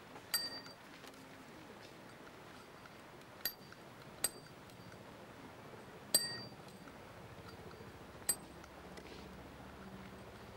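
A kea pecking at a bicycle's handlebar bell, ringing it with five short, sharp dings at irregular intervals.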